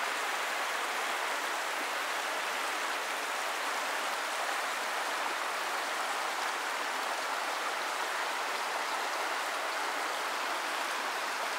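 Water running in a stream, a steady, even hiss with no breaks or distinct splashes.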